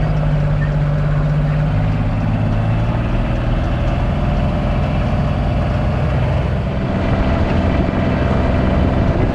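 A vehicle engine running steadily, its pitch shifting lower about two seconds in.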